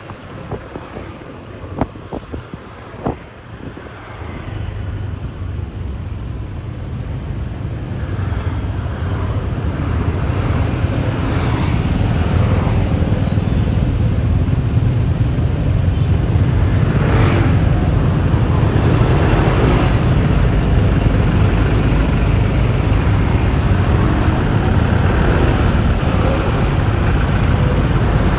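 Wind rushing over the microphone and road noise while riding a Yamaha Lexi LX 155 scooter. A few sharp clicks come near the start, then the noise grows steadily louder over about ten seconds as the scooter picks up speed, and holds level.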